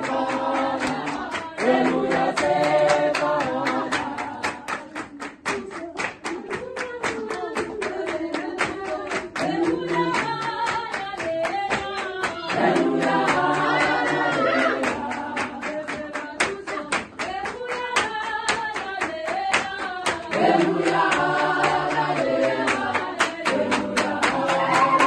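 A congregation singing together unaccompanied, several voices in harmony, with steady rhythmic handclapping keeping the beat throughout.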